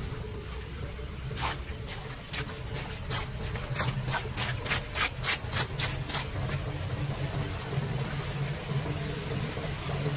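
A hand rake scraping wet leaves and litter off a metal storm-drain grate in shallow floodwater: a quick run of raking strokes, about three a second, stopping about six seconds in, then a steady wash of water.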